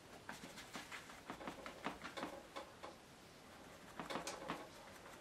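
A sponge being dabbed in acrylic paint: a run of faint, soft, irregular taps, several a second, that pauses about three seconds in and comes back briefly about a second later.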